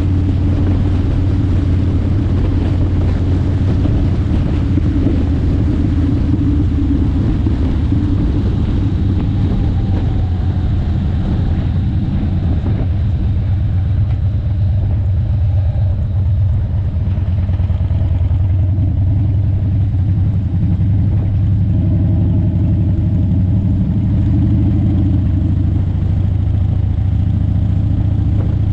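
A vehicle's engine and road noise, running steadily while it is driven, with a strong low hum.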